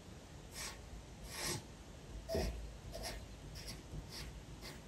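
Pencil tracing lines on paper: about seven short, separate strokes, faint, the strongest a little over two seconds in.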